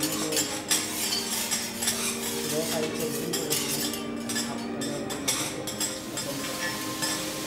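Metal spatulas scraping and clinking against a flat-top griddle as food is stirred and turned, with light sizzling underneath.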